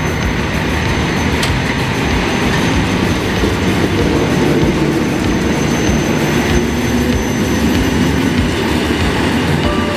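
Passenger train running past along the station platform: a steady, loud noise of wheels on the rails, with one brief click about a second and a half in.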